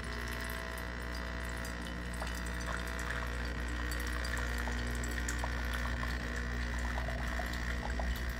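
Nespresso Vertuo Plus running its first-use rinse cycle: the machine's pump hums steadily while a thin stream of water splashes into a ceramic mug.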